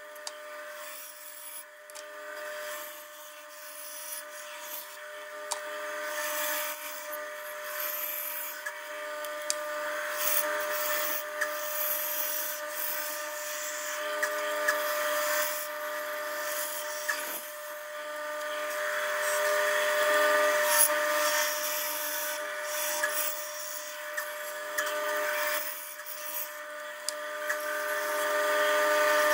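Bandsaw running with a steady hum while its blade cuts through a block of wood. The cutting hiss swells and eases as the piece is fed and turned, and it gets louder near the end, with a few small clicks along the way.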